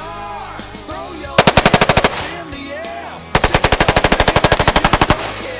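AR-15 rifle with a Slide Fire bump-fire stock firing rapid, machine-gun-like bursts: a short burst about a second and a half in, then a longer one of nearly two seconds, at roughly fifteen shots a second.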